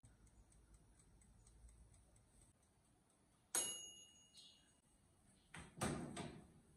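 A countertop electric oven's mechanical timer ticks faintly, then its bell rings once about halfway through: a single bright ding that fades over about a second, marking the end of the timed wait. Near the end the oven's hinged glass door is pulled open with a clunk and rattle.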